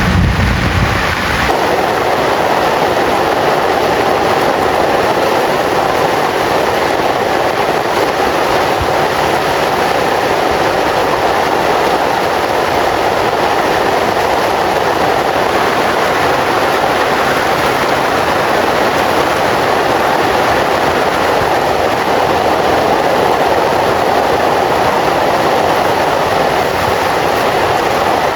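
Heavy rain falling in a steady, dense roar, with the tail of a low thunder rumble fading out in the first second or two.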